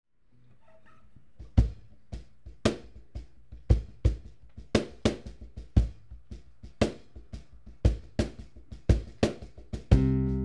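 Drum kit playing a steady beat, kick and snare hits with lighter strokes between, starting about a second and a half in. Just before the end, guitar and other pitched instruments come in with the band.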